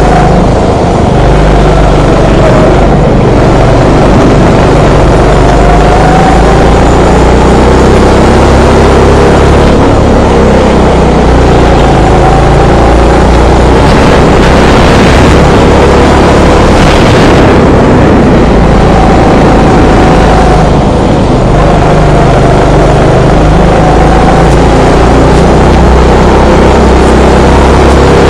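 Go-kart engine heard on board, running loud and continuously, its pitch rising and falling as the throttle is worked, with short dips about three seconds and about twenty-one seconds in.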